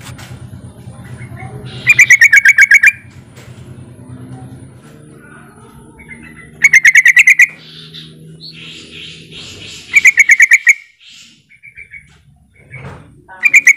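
Yellow-vented bulbul (trucukan) giving loud bursts of rapid chattering notes, each burst under a second long, repeated about every four seconds with a fourth burst starting near the end. This is the call used to draw other bulbuls into answering. Fainter chirps fill the gaps, over a low hum in the first half.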